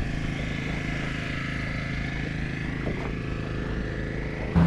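Outboard motor running steadily with an even hum. Near the end it gives way suddenly to a louder, deeper engine sound.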